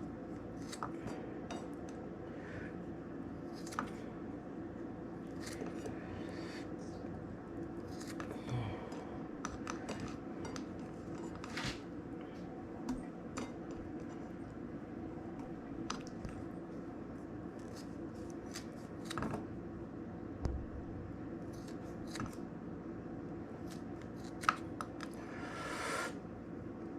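Kitchen scissors snipping lime slices, peel and all, into small pieces: irregular short snips and light clicks over a steady background hum.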